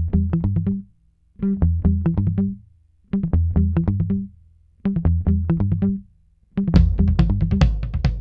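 Music: four short plucked-string phrases, each followed by a brief pause, then a fuller, continuous arrangement comes in about six and a half seconds in.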